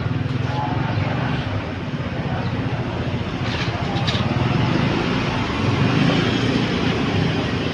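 Tour bus engine running as the bus moves along in street traffic, growing somewhat louder near the end, with two short hisses about three and a half and four seconds in.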